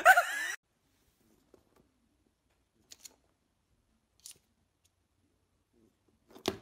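A high, wavering dog whine that cuts off about half a second in. Then near silence, broken by a few faint soft clicks.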